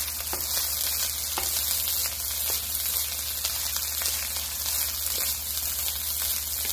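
Day-old long-grain white rice frying in a wok, a steady sizzle, with a wooden spoon scraping and lightly knocking as the rice is stirred.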